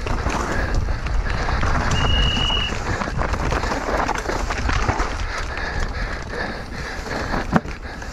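Mountain bike riding down a dirt trail: tyres on dirt and rocks and the bike rattling, with wind on the microphone. A short high squeal sounds about two seconds in, and a sharp knock near the end.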